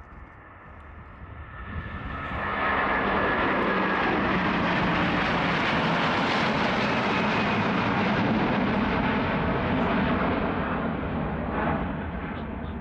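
Large jet airliner departing at takeoff power, its engine roar with a fan whine building over the first couple of seconds, holding loud, then easing off near the end as it passes and climbs away.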